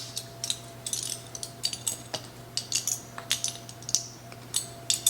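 Metal measuring spoon clinking and tapping against spice containers while black pepper is being measured out: an irregular run of light, sharp clinks, several a second.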